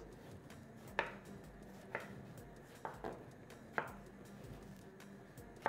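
Kitchen knife cutting eggplant into cubes on a cutting board: faint, sharp knocks of the blade on the board, about one a second.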